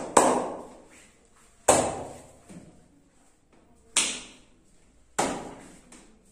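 Four sharp, loud hand slaps on a bare back during a percussive back massage, spaced a second or more apart, each fading out over most of a second.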